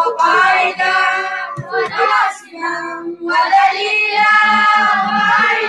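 A child's voice chanting a devotional prayer melodically into a microphone, in long held notes. The voice drops away briefly about halfway through.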